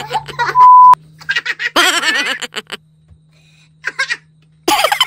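A man and a woman laughing hard and shrieking in bursts, with a short lull a little past the middle. About a second in, a loud pure beep cuts in for a quarter of a second: a censor bleep.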